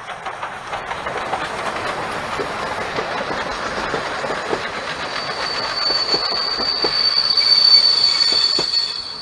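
Steam-hauled passenger train, the Ol49 steam locomotive and its coaches, passing close by: a steady rumble of wheels on the rails with irregular clicks at the rail joints. From about five seconds in a steady high-pitched squeal from the wheels rises over it, loudest near the end as the last coaches go by.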